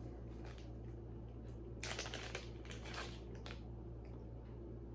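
Light rustling and clicking as small jewelry pieces and their packaging are handled, thickest about two seconds in, over a steady low hum.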